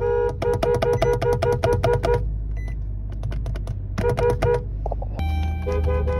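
A car horn sounding in rapid short beeps, about eight a second, in a run of about two seconds and a shorter burst about four seconds in. About five seconds in, a steady low engine hum starts, with more quick beeps over it.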